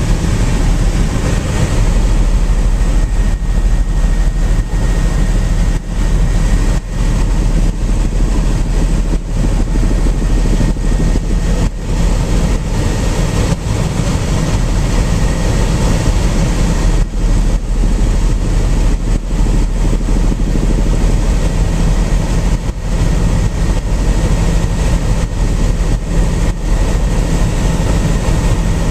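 Helicopter engine and rotor noise heard from inside the cabin: a loud, steady drone with a faint high whine running through it.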